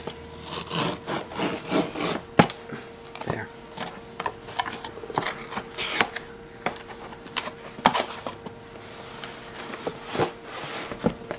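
Cardboard mailing box being torn open along its pull tab and handled: repeated rasping tears and rubbing of cardboard, with several sharp knocks.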